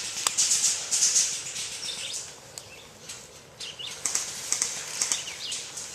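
Repeated rustling and swishing close to the microphone, as of movement through brush or clothing, with a few short bird chirps and some sharp clicks.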